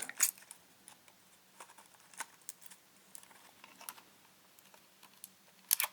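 Light, scattered clicks and ticks of small camera parts being handled as a ribbon cable is fed through a Panasonic LX7's body and lens assembly, with a quick run of clicks near the end.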